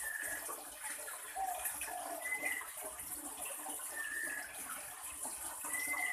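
Cinereous tits (glatik batu) calling: short whistled notes about every two seconds, with a few lower notes between them, over a steady high hiss.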